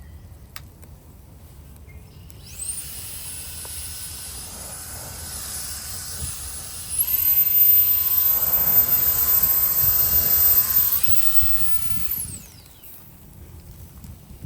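A small high-speed motor whining: it spins up about two seconds in, runs louder and higher-pitched for a few seconds in the middle, then drops back and winds down with a falling pitch near the end.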